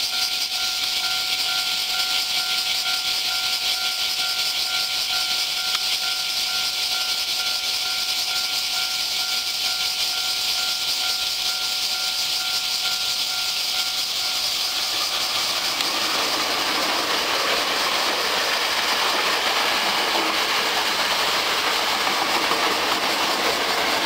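Level-crossing warning bell ringing in a steady, evenly repeated ding over a high hiss. From about fifteen seconds in, a Hankyu 7300 series electric train's running noise builds as it approaches and rushes past close by, loud enough to drown the bell.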